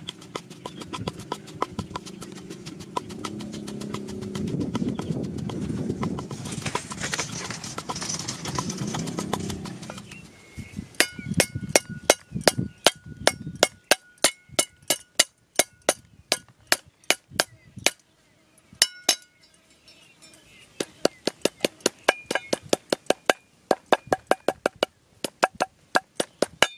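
A wooden pestle pounds chilies and salt in a wooden mortar with steady rhythmic knocks. About ten seconds in this gives way to a cleaver chopping lemongrass on a wooden chopping board: sharp chops about three a second, which pause briefly and then start again.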